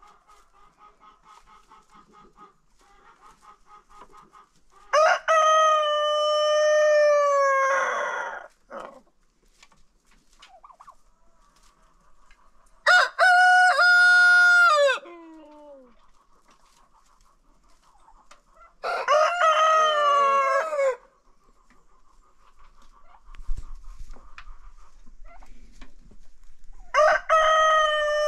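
Roosters crowing in turn, four long crows about six to eight seconds apart, with differing pitch from one crow to the next. Faint hen clucking continues between the crows.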